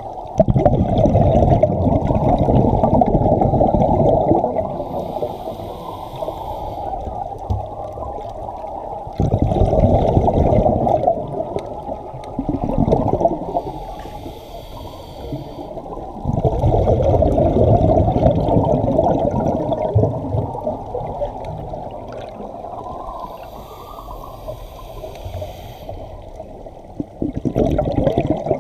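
Scuba diver breathing through a regulator underwater: long, loud, muffled rushes of exhaled bubbles alternate with shorter, quieter inhalations that carry a faint hiss, one breath about every eight seconds.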